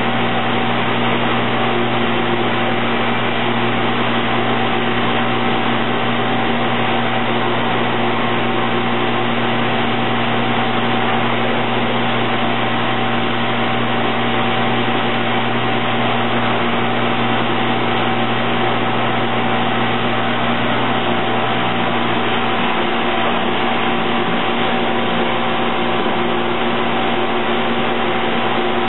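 Steady mechanical hum and hiss of a running injection moulding machine, with several held tones and no distinct knocks.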